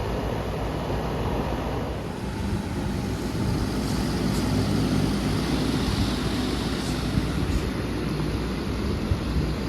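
Bard wall-mount HVAC unit running in cool mode, a steady fan and compressor hum whose sound shifts about two seconds in.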